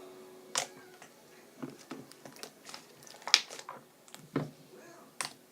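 Scrub slime being squished and kneaded by hand with perfume mixed in, giving sticky pops and clicks at irregular intervals.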